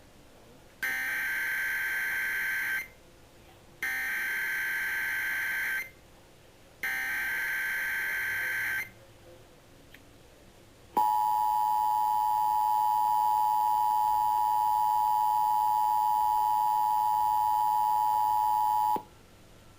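Emergency Alert System activation tones. Three bursts of SAME header data, each about two seconds long with a second's gap between them, are followed by the steady two-tone attention signal (853 and 960 Hz together). The attention signal is held for about eight seconds and then cuts off, announcing a severe thunderstorm watch.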